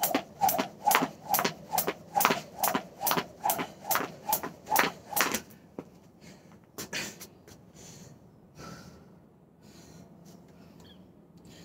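Jump rope skipping on a wooden porch deck: the rope slaps and the feet land in a steady rhythm of about two and a half strikes a second. It stops about five and a half seconds in, leaving a few scattered softer knocks.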